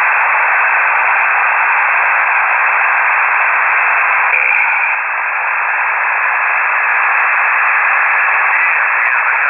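Steady hiss from a KiwiSDR shortwave receiver with no voice on the frequency, held to a narrow radio-voice band, dipping slightly about five seconds in.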